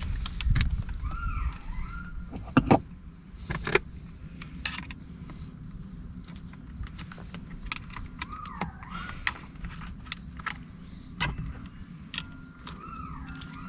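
Scattered clicks and knocks of hands and tools working on plastic and metal parts of a car's steering column, the loudest a couple of sharp knocks about three seconds in. A few swooping, whistled chirps sound now and then.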